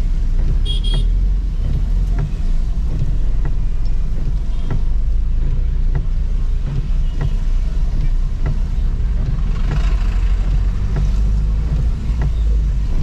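Street traffic with a steady low rumble, a short high beep about a second in, and soft clicks coming about every two-thirds of a second.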